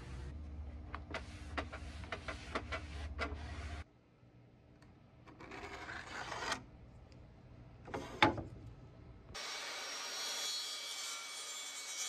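A cloth rag rubbed in quick repeated strokes across a wooden hutch top. After a cut, a marker scratches along a ruler on a pine board, with a sharp click about eight seconds in, and a steady hiss starts near the end.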